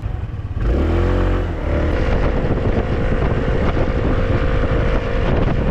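A motor vehicle's engine picks up speed about half a second in, then runs at a steady pitch, with wind rumbling heavily on the microphone.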